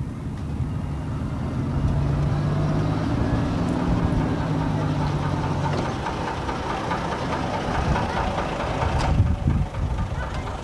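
Diesel engine of a double-decker bus moving off and driving slowly past at close range, a steady low engine note that fades as it goes by.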